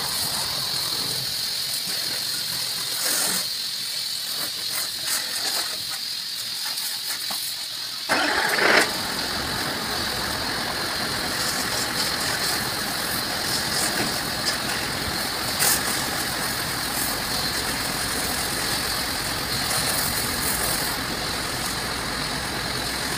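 Water jet hissing as it is sprayed onto a truck, then about eight seconds in an engine starts with a brief loud burst and keeps running steadily under the spray.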